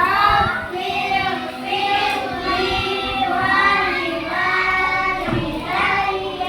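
Children singing together, a continuous song with held, gliding notes.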